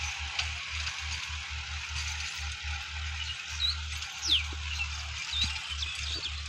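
Sonalika DI-50 RX tractor's diesel engine running steadily at a distance while it tills the field, a low hum with a hiss of working noise over it. A few short high bird chirps come in over it in the second half.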